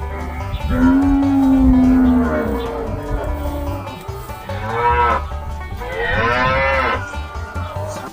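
Cattle mooing three times: a long, low, steady moo about a second in, then two shorter calls that rise and fall, the last one higher and brighter, near the end. Background music runs underneath.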